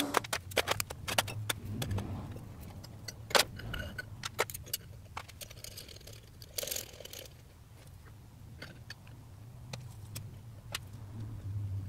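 Scattered metallic clinks and taps as a steel 1-2-3 block, steel pieces and a small clamp are handled and set in place on a steel table, the sharpest knock about three and a half seconds in.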